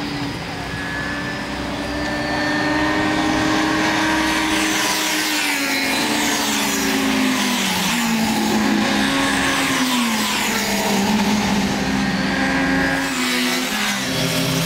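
Triumph sport motorcycles on track, engines running hard as they approach and grow louder. The engine note steps down in pitch about halfway through as the riders slow for the corner, and near the end one bike passes close with a drop in pitch.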